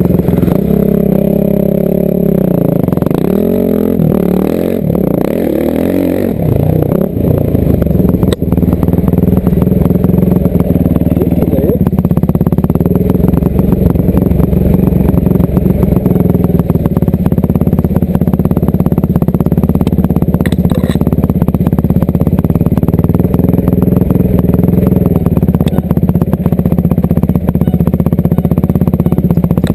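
Dirt bike engines heard from the rider's seat. For the first seven seconds or so the pitch rises and falls as the engines are blipped among the group, then one engine runs at a steady pitch as the bike rides along a forest trail.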